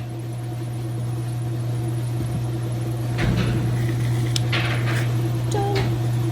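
A steady electric hum, with a few clicks and knocks of hard plastic parts being handled and fitted about halfway through.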